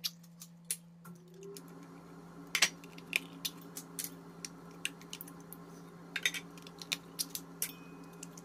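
Opened tin cans of condensed cream of celery soup being emptied into a stainless steel mixing bowl: scattered sharp taps and knocks of metal on metal as the cans are handled and shaken out over the bowl. A steady low hum runs underneath.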